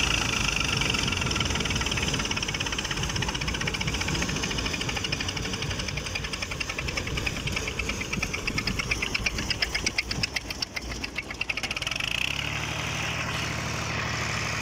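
Massey Ferguson 240 tractor's diesel engine running under load, driving a wheat thresher whose machinery whirs and clatters with a fast regular pulsing. Near the end the sound turns to a steadier, closer engine hum.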